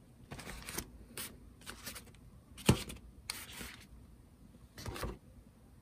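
Hands handling small objects on a work surface: a run of short rustling and scraping sounds, with one sharp knock a little before the halfway point.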